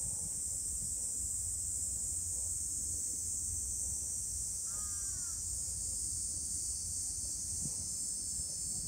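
Cicadas in a steady, shrill chorus, with one short animal call about five seconds in.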